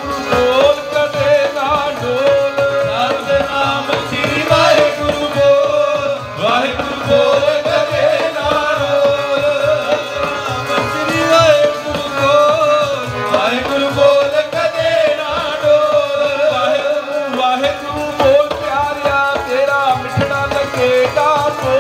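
Sikh kirtan: tabla drumming under held melody notes and a sung devotional chant, playing on steadily.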